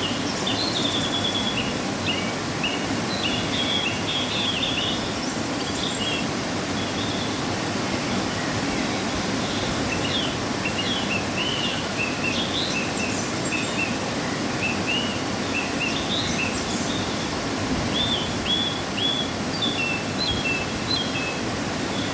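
Waterfall after rain, a steady rushing of falling water, with small birds chirping over it at short, irregular intervals.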